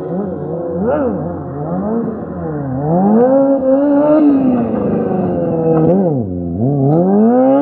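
Sport motorcycle engine being revved up and down repeatedly, the pitch rising and falling several times with a deep drop and climb back up near the end.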